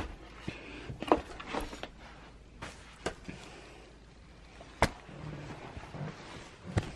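Camera handling noise: scattered clicks, knocks and rustling as the camera is moved about in the hand, with one sharper click about five seconds in.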